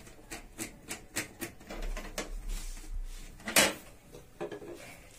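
Small clicks and knocks of a screwdriver and hands on the plastic casing of an HP Ink Tank Wireless 419 printer as its screws are taken out. There is a short rasp in the middle and one louder click about three and a half seconds in.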